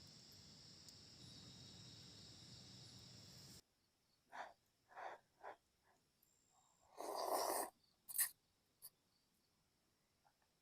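Steady chirring of crickets and insects that cuts off suddenly a little over three seconds in. Then come a few short breathy mouth sounds and one longer, louder one about seven seconds in, as someone starts eating hot instant noodles.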